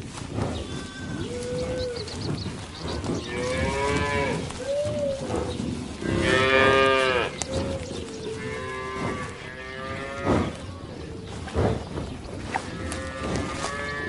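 Cattle mooing, about five drawn-out calls one after another, the loudest about six to seven seconds in.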